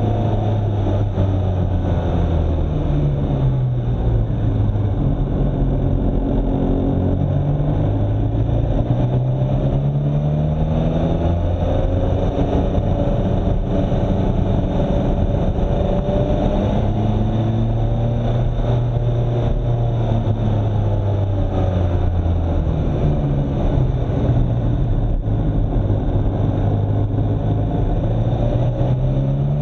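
A road vehicle's engine running while driving, its pitch climbing and dropping again every few seconds as it speeds up and slows.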